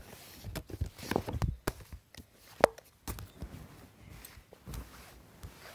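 Irregular soft knocks, taps and rustles of handling noise as a phone is moved about over a pile of paperback books.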